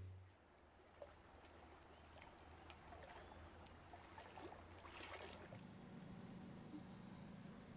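Near silence: faint ambient hiss with scattered soft ticks and clicks, the most distinct about a second in.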